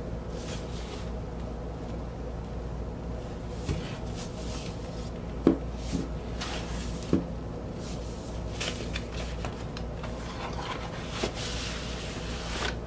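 Cardboard gatefold LP jacket handled on a table: scattered soft knocks and rustles as it is turned, tapped and opened out flat, the loudest a knock about halfway through, over a steady low hum.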